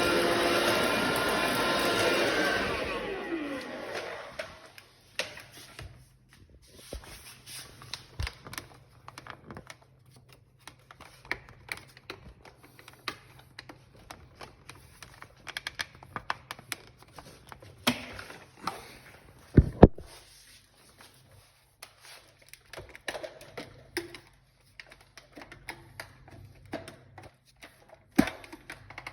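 Bosch cordless vacuum cleaner running, then switched off about two and a half seconds in, its motor winding down with a falling whine. Scattered clicks and knocks follow, with a louder double knock near the middle.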